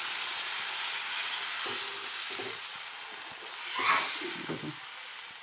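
Chicken curry sizzling steadily in its oily gravy in a frying pan, with a short louder swell about four seconds in.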